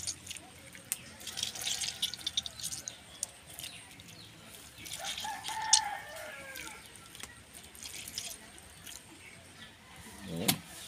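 Wet squishing and dripping as hands squeeze raw tamban sardine flesh in vinegar, with small clicks and splashes. A bird call rises and falls about five seconds in.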